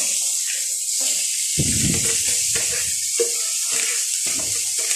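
Chopped onions and garlic sizzling in hot oil in a nonstick frying pan, sautéed as the base for a fish steak sauce, with a spatula stirring and scraping against the pan.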